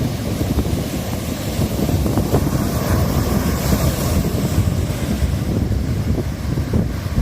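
Wind buffeting the microphone over the rush of ocean surf whipped up ahead of a typhoon, the surf's hiss swelling about halfway through.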